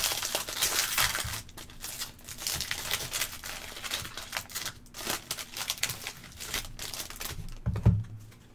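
Silver foil wrapper of a trading-card pack crinkling and crackling as hands pull it open, in dense irregular crackles. About eight seconds in there is one dull thump, and then it goes quiet.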